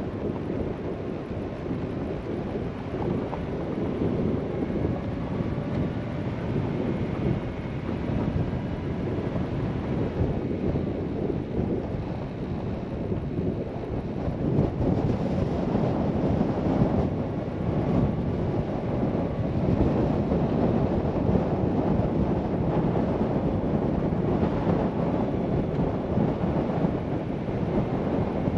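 Steady wind rushing over the microphone, mixed with the rumble of a vehicle's tyres and engine on a dirt road, growing a little louder about halfway through.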